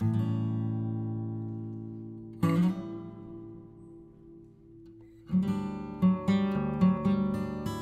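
Background music of strummed acoustic guitar: a chord left to ring and fade, a second one about two and a half seconds in, then steady rhythmic strumming from about five seconds in.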